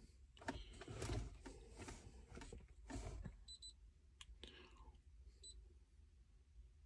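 Near silence with faint handling noise and a few soft clicks, and two brief high-pitched chirps, one about three and a half seconds in and one about five and a half seconds in.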